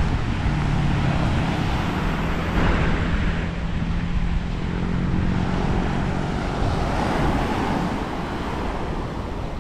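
Wind rumbling on the microphone over surf washing onto a sandy beach, with a steady engine hum that fades out about seven seconds in.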